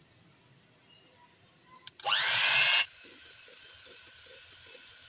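Electric hand mixer switched on about two seconds in: its motor spins up with a rising whine and runs loud for under a second, then drops suddenly to a quieter steady run as its beaters whip chilled cream.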